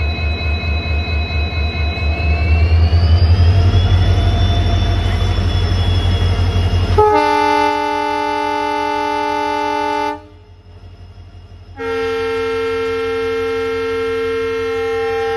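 WDG4 diesel-electric locomotive's EMD two-stroke engine running with a throbbing beat, its high whine rising in pitch a couple of seconds in. Then the locomotive's air horn sounds two long blasts, about three seconds each, with a short pause between them.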